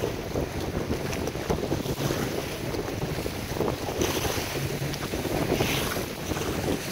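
Wind buffeting the microphone on a moving boat, over water rushing and splashing and a low steady hum.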